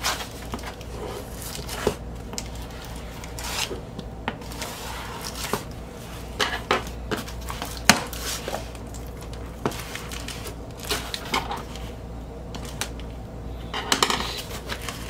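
Scissors and hands working a taped cardboard record mailer: scattered taps, clicks and rustles of cardboard and packing tape, with one sharp click about eight seconds in and a burst of crackling tape near the end.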